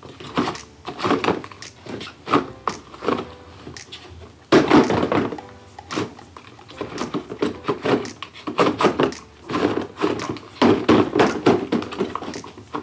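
Plastic crank dial of a cardboard toy vending-machine box being turned, with repeated knocks and clicks of plastic capsules rattling and dropping inside the box. The loudest thunk comes about four and a half seconds in.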